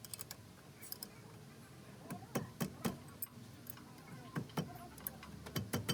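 Irregular light metallic clicks and taps, about a dozen spread unevenly, as tools and metal parts are handled during brake caliper work.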